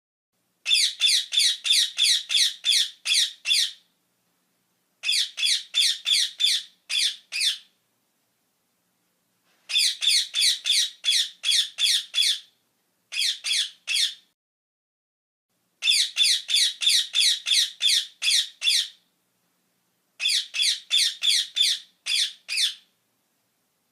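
A parrot giving shrill, repeated squawks, about three a second, in six bouts of three to eight calls with a second or two of silence between them.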